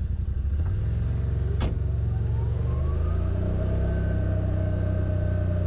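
Yamaha RMAX side-by-side's engine running as it pulls away, with a whine that rises about two seconds in and then holds steady at cruising speed. A single sharp click comes shortly before the rise.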